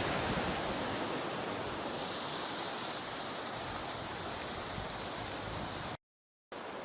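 Steady rushing outdoor background noise, even and without distinct events. About six seconds in it cuts to half a second of dead silence, then resumes slightly quieter.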